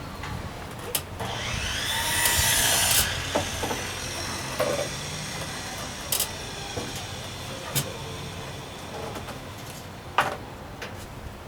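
Scraping and rubbing as an electric chainsaw is dragged down from overhead storage: a loud scrape about two seconds in, then a few scattered knocks and clunks.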